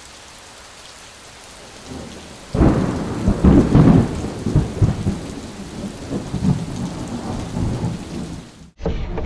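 Rain hissing steadily, then a long roll of thunder from about two and a half seconds in, rumbling and surging unevenly for about six seconds before cutting off suddenly.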